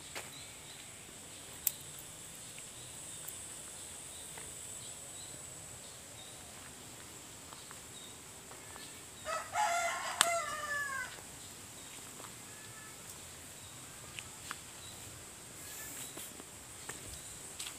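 A rooster crowing once, about halfway through, for a little under two seconds. Under it runs a steady high-pitched hiss, with a few faint clicks.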